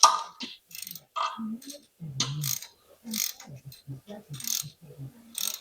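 Irregular metallic clicks and scrapes of hand tools being worked, in quick uneven strokes.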